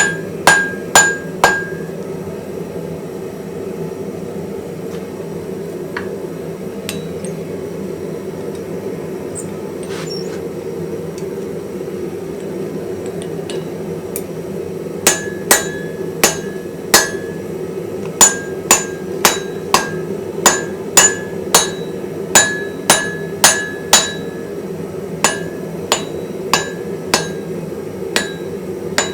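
Hammer blows ringing on a steel anvil: four quick strikes at the start, a long pause, then a steady run of strikes about two a second through the second half. A steady low hum runs underneath.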